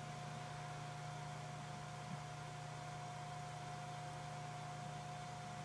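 Sony Vaio PCV-LX1 desktop computer running: a steady low hum with a thin, steady whine over it, and one faint tick about two seconds in.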